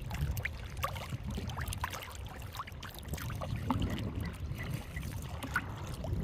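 Water splashing and dripping in many small, irregular drops, over a steady low rumble.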